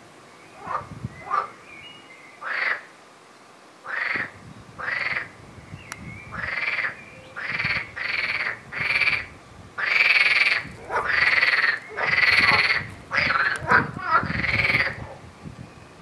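Green water frog croaking: a run of short repeated croaks. They are few and faint at first, then come steadily from about four seconds in and grow longer and louder, loudest around ten to twelve seconds in.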